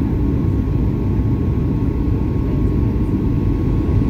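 Steady airliner cabin noise during a low descent on approach: engine and airflow noise, mostly a low rumble, with a faint steady tone above it.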